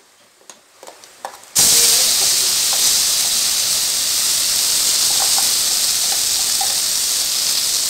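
Ground drumstick-leaf (murungai keerai) paste dropped into hot tempering oil with mustard seeds and urad dal, setting off a loud, steady sizzling hiss that starts suddenly about a second and a half in.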